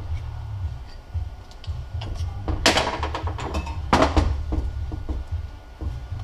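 Screwdriver prying at a Mazdaspeed 6 transfer case and metal parts knocking and clunking as a piece is lifted off, with two louder clanks a little over a second apart about midway.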